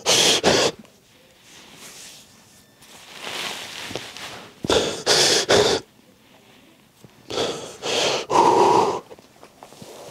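A man crying: heavy, shaky sobbing breaths and sniffs in several bursts.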